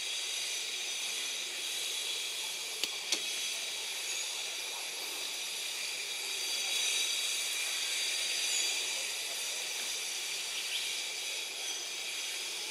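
Steady high-pitched drone of forest insects, likely cicadas, made of several even shrill tones layered together. Two brief sharp clicks come about three seconds in.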